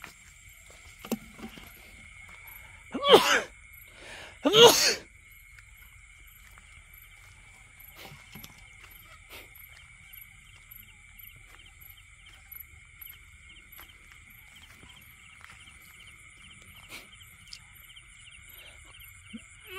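Night insect chorus in flooded rice-field country: several steady high trills with a fast pulse. Two loud short sounds break it, about three seconds in and again a second and a half later.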